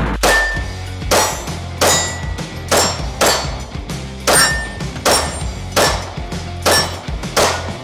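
Anderson Manufacturing Kiger 9c Pro 9mm pistol firing shot after shot at a steady pace, about one shot every 0.7 seconds, over background music.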